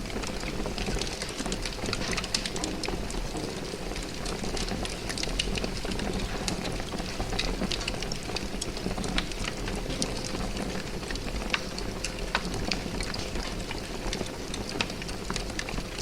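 Large fire burning: a steady low roar of flames with frequent sharp crackles and pops scattered throughout.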